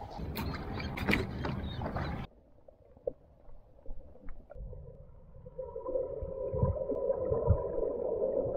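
Splashing footsteps wading through shallow surf over wind noise, cut off suddenly about two seconds in by muffled underwater sound from a submerged camera: scattered low thumps and, in the second half, a faint steady hum.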